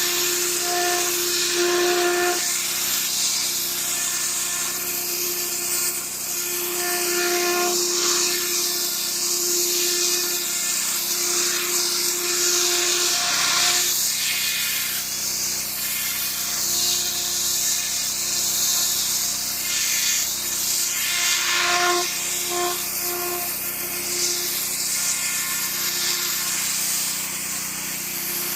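Pressure washer running, its water spray making a steady hiss, with a machine hum that swells and fades at times.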